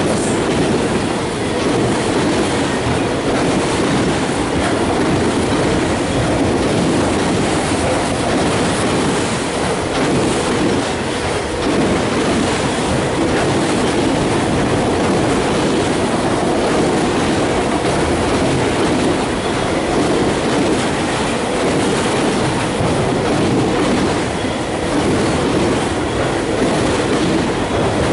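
Freight train of enclosed autorack cars rolling past, its steel wheels on the rails making a steady, loud rumble.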